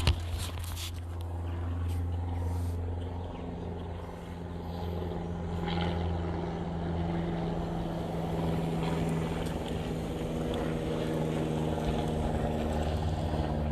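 An engine running steadily at idle, its hum shifting slightly in pitch a few seconds in, with a sharp click at the very start.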